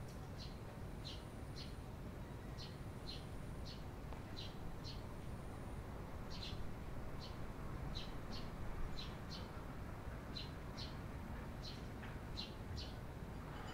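Eurasian tree sparrows chirping: a steady run of short, high chirps, a bit under two a second, often in pairs.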